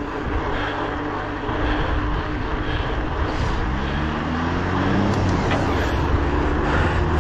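Wind and tyre noise from a mountain bike being ridden at speed. Partway through, a hum rises in pitch and then holds steady.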